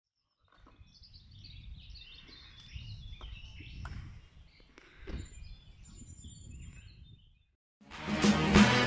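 Birds chirping over a low rumble of wind on the microphone, with a soft knock about five seconds in. After a short gap, loud intro music with a heavy beat starts near the end.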